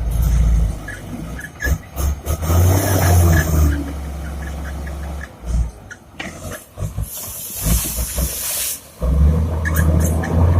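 Komatsu D70LE crawler bulldozer's diesel engine working, its low drone swelling and dropping several times as the load comes on and off. Two long bursts of hissing noise and a scatter of sharp cracks lie over it.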